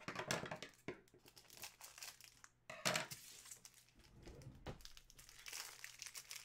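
Clear plastic wrapper of a football trading-card pack crinkling and tearing as it is peeled off by hand, in irregular crackles, the sharpest about three seconds in.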